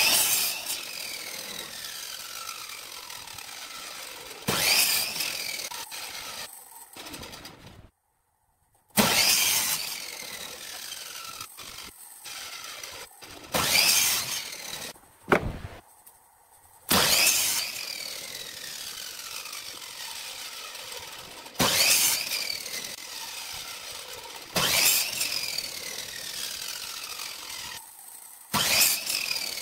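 Electric compound miter saw crosscutting wooden strips into short blocks, about eight cuts in turn. Each cut starts with a sudden loud burst as the motor spins up and the blade goes through the wood, then a falling whine as the blade coasts down.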